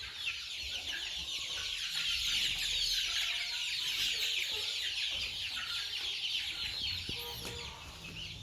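A flock of desi (country chicken) chicks peeping together in a dense, continuous chorus of high-pitched chirps, slightly louder in the middle.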